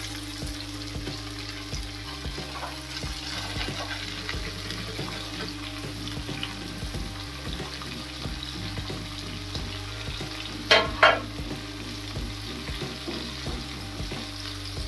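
Potatoes and freshly added mogri (radish pods) sizzling in hot oil in a steel kadhai, a steady crackle over a low hum. Two sharp knocks come close together about eleven seconds in.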